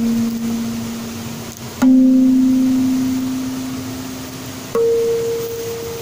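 Background music of slow, single ringing notes: one note fading out, a new lower note struck about two seconds in, and a higher note struck near five seconds, each ringing on and slowly dying away.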